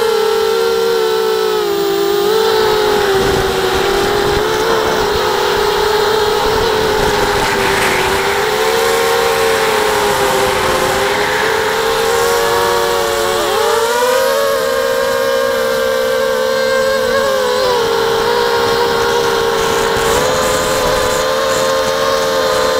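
Racing quadcopter's electric motors and propellers whining steadily in flight, the pitch wavering up and down with throttle. About two-thirds of the way through it briefly drops, then climbs again.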